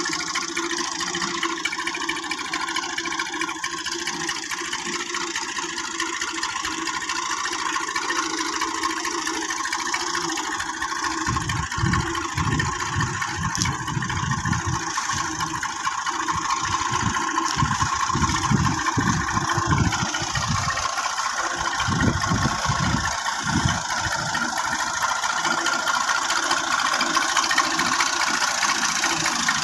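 Tractor diesel engine running steadily while it tows a hitched trailer, with irregular low thumps through the middle stretch.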